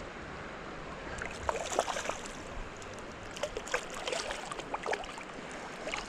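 Steady rush of creek water with irregular splashes from a hooked trout thrashing at the surface, in a cluster about a second and a half in and another from about three and a half to five seconds.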